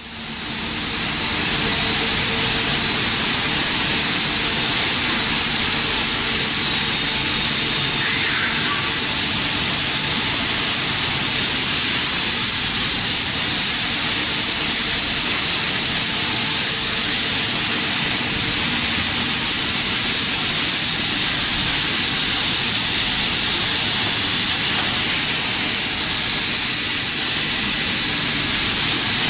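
PVC pipe extrusion line running: steady machine noise with a high, even whine over it.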